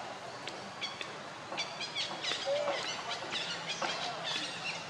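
Animal calls: a quick run of short, high chirps and squeaks, with a lower rising-and-falling call about two and a half seconds in, over a steady outdoor background.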